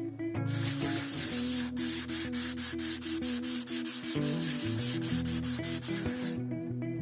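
Hand sanding on the guitar, quick back-and-forth strokes about five a second, starting just after the beginning and stopping about a second before the end. Guitar background music plays underneath.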